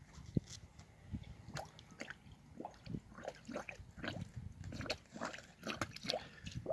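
An animal eating: a rapid, irregular string of short wet smacking and slurping sounds.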